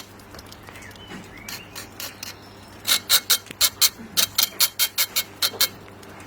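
Quick, even strokes cleaning excess mortar off the face of freshly laid brickwork, about four or five a second, starting about three seconds in and stopping shortly before the end.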